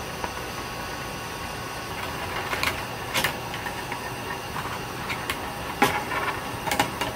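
Stainless steel perforated steamer basket of bean sprouts being lifted out of a pot of hot water: a steady hiss, then from about two and a half seconds in, a handful of short clinks and splashes as the metal basket knocks against the pot and water drains through its holes.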